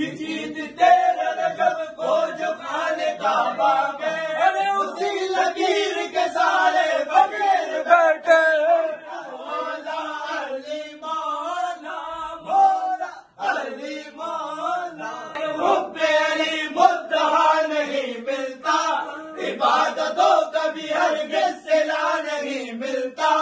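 Group of men chanting a manqabat, a Urdu devotional song in praise of Imam Ali, in unison, with a brief break about thirteen seconds in.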